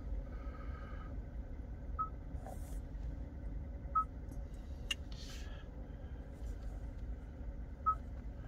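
Short electronic confirmation beeps from a Hyundai Ioniq 5's infotainment touchscreen as its menu buttons are tapped, three in all, over a steady low in-car rumble; one sharp click about halfway through.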